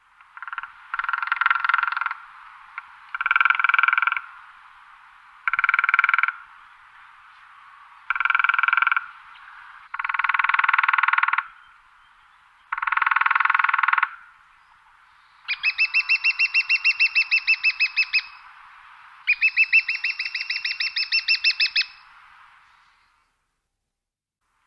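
Woodpecker drumming on wood: a series of rapid drum rolls, each a second or two long, repeating about every two seconds. The last two rolls are longer, with separate quick strokes and a ringing tone from the wood.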